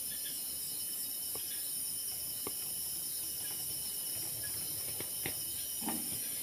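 Night chorus of crickets and other insects, a steady high-pitched trilling, with a few faint clicks scattered through it.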